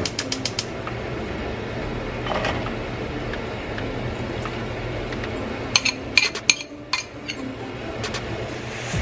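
Cooking in a nonstick wok on a gas stove as shishito peppers and soy-sauce seasoning go in: a steady hiss with sharp utensil clicks and taps, a few at the start and a cluster about six to seven seconds in.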